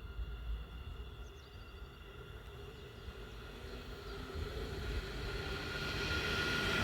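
An approaching train: its running noise grows steadily louder from about halfway through, a rising rush with a steady high hum over it.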